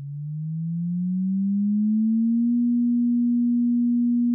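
A single low, pure electronic tone that fades in and glides steadily up in pitch for about two and a half seconds, then holds on one note.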